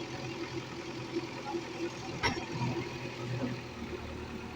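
A heavy diesel engine, from the backhoe loader or a tractor, running steadily. There is a single sharp knock a little over two seconds in.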